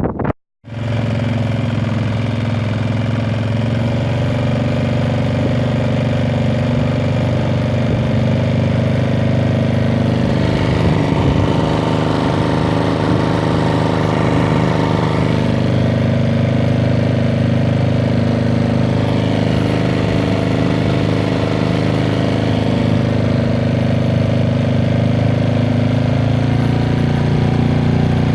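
Small engine running steadily at a constant speed, starting right after a brief cut about half a second in, with slight shifts in pitch a few seconds in and near the end.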